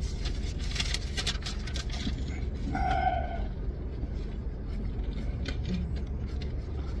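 Plastic drink bottle crinkling and crackling as it is handled, with a run of sharp crackles in the first two seconds and a short squeak about three seconds in, over a steady low rumble.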